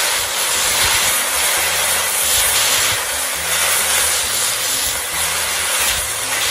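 Wide rice noodles coated in soy sauce sizzling in a hot wok while they are tossed and turned with tongs; the sizzle swells and eases as the noodles are lifted and dropped.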